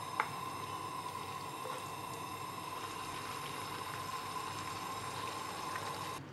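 Food simmering in a frying pan, a steady bubbling hiss, with a steady high-pitched tone running under it. A single light click comes just after the start, and the sound drops away suddenly near the end.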